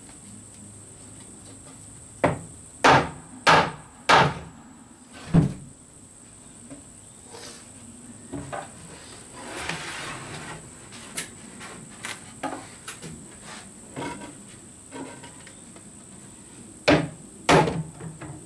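A hammer striking plywood boat stringer and bulkhead pieces to knock them into place: five sharp blows in the first few seconds, lighter taps and a brief scraping of wood in the middle, then three quick hard blows near the end.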